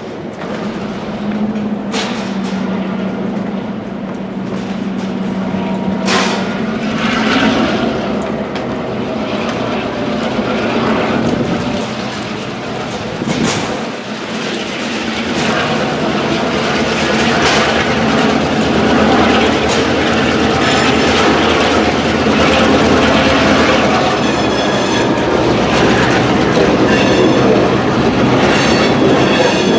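Freight train cars rolling past with wheels clicking over rail joints over a continuous rumble, with strong wind on the microphone.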